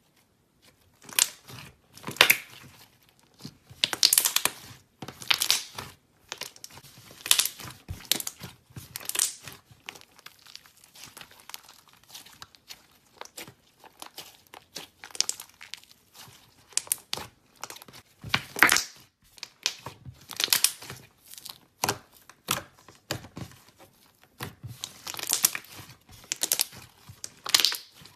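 Thick slime being squeezed, pulled apart and pressed by hands, making irregular bursts of sticky crackling and popping every second or so, starting about a second in.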